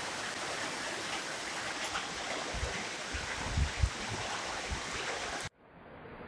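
Muddy water running in a concrete irrigation channel, a steady rush, with a few low thumps partway through. The sound cuts off suddenly near the end, leaving a faint hiss.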